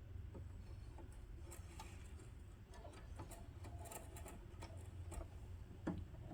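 Faint, irregular small clicks and ticks of a home sewing machine's thread guides and parts being handled as it is threaded by hand, over a low hum.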